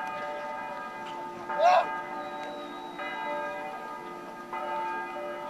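Bells ringing, with sustained ringing tones and new strikes about every one and a half seconds. A brief loud call with a sliding pitch cuts in about a second and a half in.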